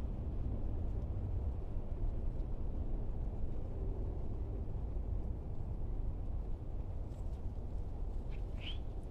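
Wind buffeting the microphone in a steady low rumble, with a short bird call rising in pitch near the end.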